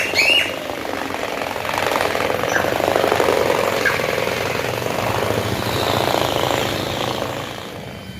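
Dense, rapid rattling and pounding as a carpet is beaten or shaken to drive the dust out of it, dying away near the end. A couple of short high chirps at the very start.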